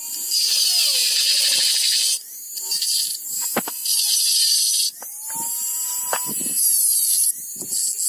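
Handheld rotary tool spinning a cone-shaped burr that grinds a pocket into a small steel padlock body. A high-pitched whine with scratchy cutting noise comes in three long passes with brief lulls between them, and the motor's pitch wanders up and down.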